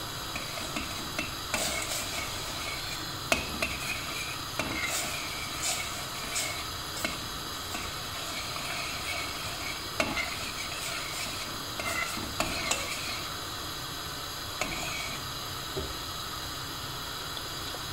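Metal spoon stirring in a stainless steel pot of warm milk and cream with coffee, scraping and clinking irregularly against the pot's sides and bottom, over a steady hiss.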